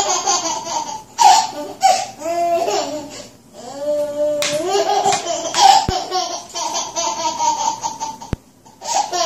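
A baby or small child laughing in several high-pitched bursts with short breaths between them. Two brief clicks are heard in the second half.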